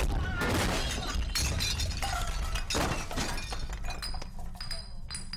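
Glass shattering and breaking amid several heavy impacts. From about four seconds in, glass shards and bottles clink and tinkle as they settle.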